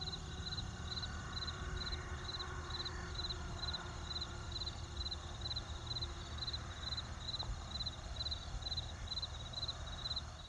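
A steady run of short, high, cricket-like chirps, about three a second, over a low rumble.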